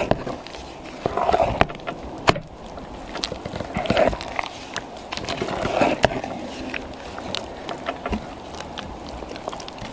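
A slotted spoon stirring and mashing thick boiled tapioca in a pot: soft, wet scraping with scattered sharp clicks of the spoon against the pot.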